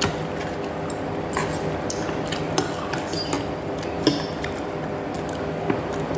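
Eating at a bowl of noodle soup: a few short clicks of wooden chopsticks and a metal spoon against the ceramic bowl, with soft wet sounds of the noodles, over a steady low hum.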